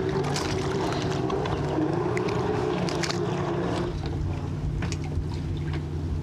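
A steady low motor drone with scattered short clicks and knocks.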